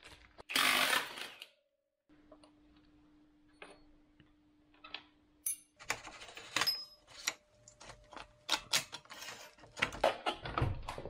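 Metal clicks, clinks and rattles as the rear wheel of a Honda XR400 dirt bike is taken off by hand: the axle and chain adjuster are worked loose and the chain comes off the sprocket. The clinks come thick and fast in the second half, with a few heavier knocks near the end, after a short noisy burst about a second in.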